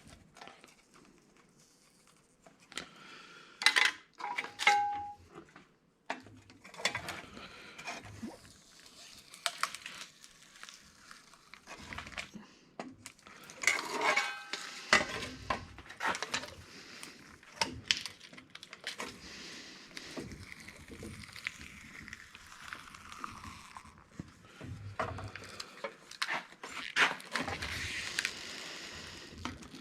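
Irregular clatter, clinks and knocks of the sheet-metal (tin) panels and small parts of a gas-station console being pried apart and handled, with one short metallic ring about four and a half seconds in.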